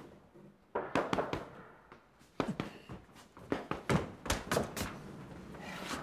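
Fists punching a sandbag: a quick series of about a dozen dull thuds and knocks, coming in short clusters.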